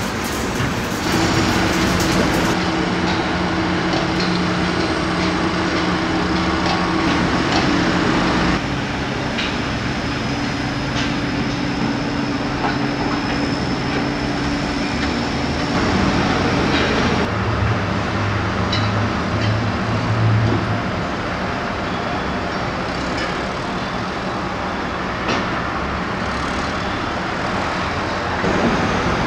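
Heavy diesel machinery running steadily over a wash of site and traffic noise. Its low engine tones change a few times, with a few faint knocks of metal.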